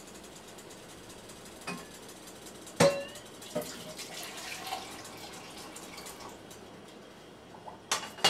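Sharp metallic clinks and plinks around a metal pot on an electric stovetop. The loudest comes about three seconds in and rings briefly; a few softer ones follow, then two quick clinks near the end, all over a faint crackle.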